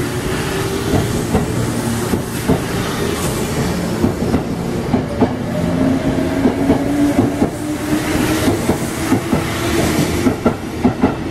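Sanyo Electric Railway 5000-series electric train pulling away from the platform. The traction motors whine, rising steadily in pitch as it picks up speed, and the wheels click over the rail joints faster and faster.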